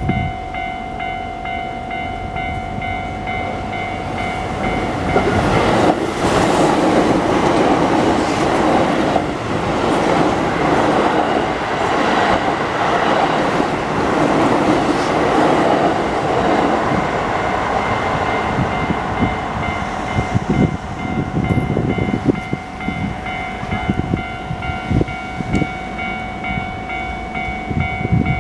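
Japanese level-crossing warning bell ringing with its repeating electronic clang while a Keio Line electric train runs through the crossing, the passing noise swelling from about five seconds in. Near the end the wheels knock over the rail joints in a rapid clatter.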